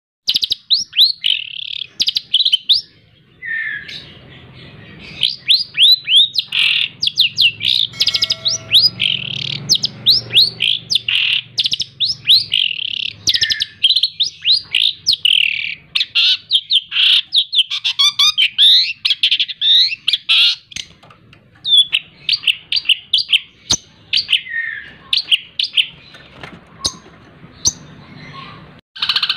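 Long-tailed shrike (cendet) singing a dense, rapid-fire song of quick downslurred notes packed with mimicked phrases of other birds, in long runs broken by brief pauses.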